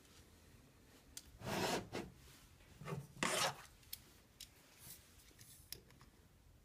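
Digital caliper handled and its sliding jaw pushed along the steel beam: two short scraping slides, followed by a few light clicks as the jaws are set against the support's metal column.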